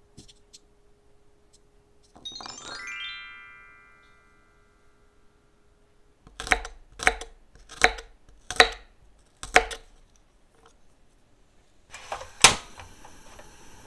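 Five sharp knocks on a wooden cutting board, roughly one a second, as garlic cloves are handled. Near the end a portable gas stove's igniter clicks with one loud snap, and the burner catches with a steady gas hiss.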